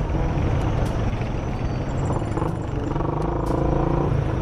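Suzuki Gixxer motorcycle running through an aftermarket SC Project exhaust with its silencer fitted, a steady deep bass rumble mixed with road and traffic noise.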